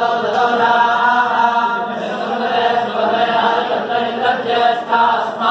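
Many priests chanting Sanskrit mantras to Shiva together in a continuous, steady recitation.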